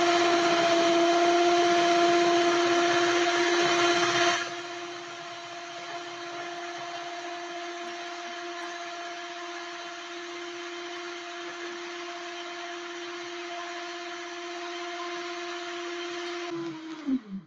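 Red electric stand mixer running steadily, its beaters whipping a gelatin mixture for maria mole, with a steady motor hum. The sound drops to a quieter level about four seconds in, and near the end the motor winds down with a falling pitch and stops.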